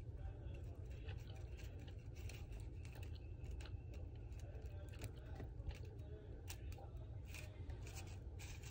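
3D-printed plastic nautilus gears turned by hand, their teeth meshing with a run of irregular small clicks and ticks and some light rubbing of plastic.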